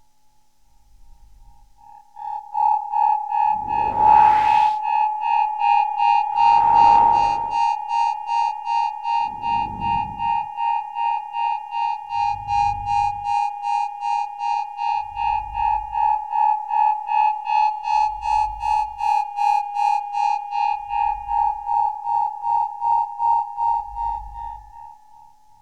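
Electronic synthesizer music: a high synth tone pulsing about three times a second over a low bass thump roughly every three seconds, with two swooshes about four and seven seconds in. It swells up about two seconds in and fades away near the end.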